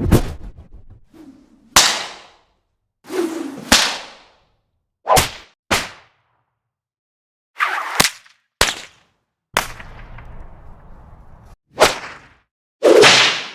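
A series of whip cracks, about ten sharp cracks one to two seconds apart, some led in by a short swish of the lash. One crack about two-thirds of the way through trails off into a couple of seconds of low noise.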